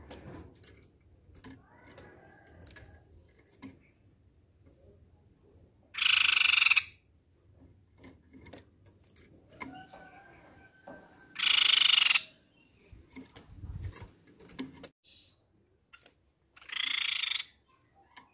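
Crescent-chested babbler (tepus pipi perak) giving three loud, harsh calls, each just under a second, about five seconds apart, with faint clicks in between.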